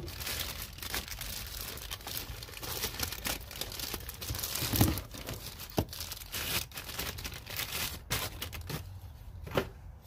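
Packaging crinkling and tearing as a socket set is unwrapped and pulled from its box, with a few dull knocks around the middle; the crinkling dies down near the end.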